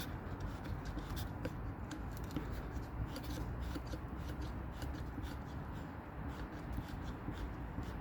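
A stuck scooter wheel being turned back and forth by hand after a spray of WD-40: a steady rubbing with small irregular clicks as the seized wheel is worked loose.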